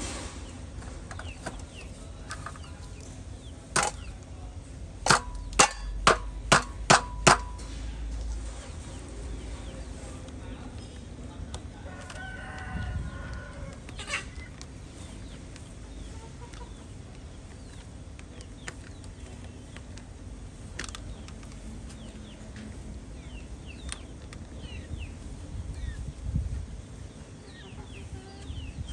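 Chickens clucking and chirping, with a rooster crowing about twelve seconds in. Early on, a run of sharp knocks, six in a row at about two a second, is the loudest sound.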